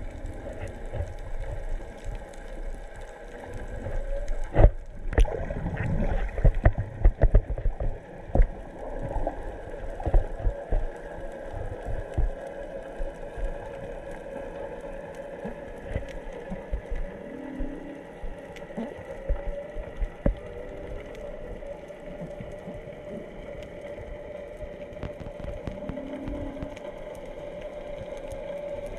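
Whale song heard underwater: long, wavering moans overlapping one another, with shorter, lower calls about two-thirds of the way in and near the end. A scatter of close knocks and clicks comes between about four and nine seconds in.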